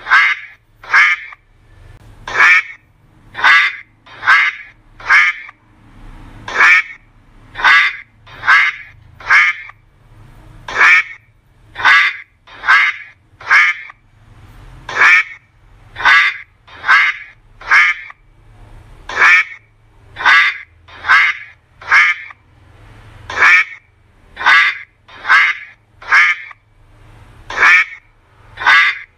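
A duck quacking loudly and over and over, about one quack a second, in runs of two to four quacks with short pauses between.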